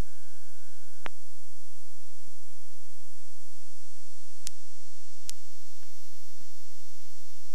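Steady electrical hum and hiss with a few sharp clicks, and no distinct sound event.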